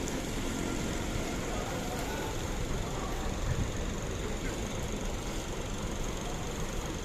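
Bus engine running at idle, a steady low rumble.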